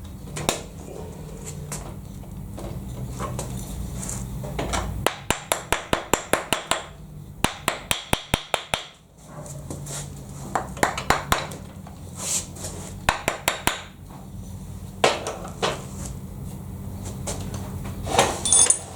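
Steel vise parts and tools clinking and tapping as the moving jaw of a milling vice is unscrewed and lifted off, with a run of quick, even clicks in the middle and a low steady hum underneath.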